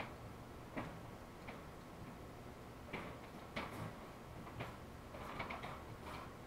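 Cat pawing at a door, its claws making irregular light clicks and taps, more of them bunched together near the end.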